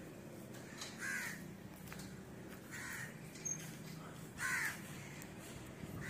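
Crow cawing: three separate caws spread over a few seconds, over a faint steady low hum.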